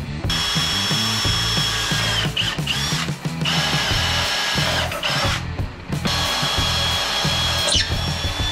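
Cordless drill boring bolt holes through metal, its motor whine running in four long spells with short stops between them. The pitch sags briefly at a few of the stops as the bit loads up.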